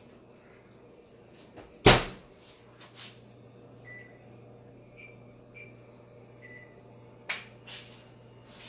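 A kitchen oven door shuts with a loud bang about two seconds in. Then a steady low hum runs with four short electronic beeps from the oven's control panel as it is set to bake, ending in a click near the end.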